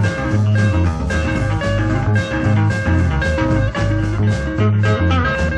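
Rock and blues band playing: guitar and a bass line over a steady beat.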